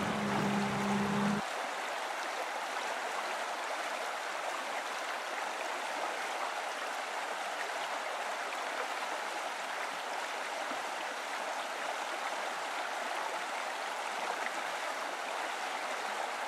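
Steady rushing of a fast river, an even hiss of flowing water. A louder low hum underneath cuts off about a second and a half in.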